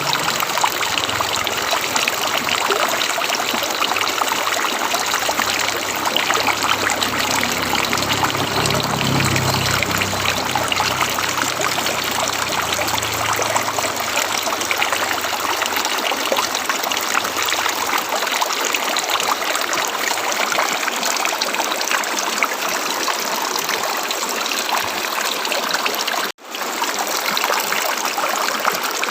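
River water running over rocks, a steady, even rushing. A low rumble sits under it through roughly the first half, and the sound cuts out for a split second near the end.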